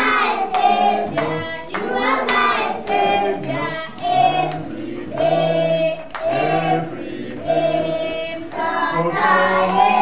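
A group of young children singing a song together in a classroom, with hand-clapping along to it.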